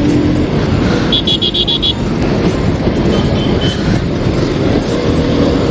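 Bajaj Pulsar 220 single-cylinder motorcycle riding in traffic, with a steady mix of engine and wind noise. A rapid run of high beeps sounds about a second in, and a fainter run comes a couple of seconds later.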